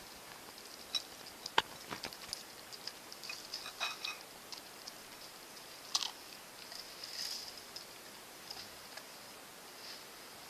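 A dog chewing and licking cake off a small metal plate, with scattered sharp clicks and clinks of its mouth and the plate.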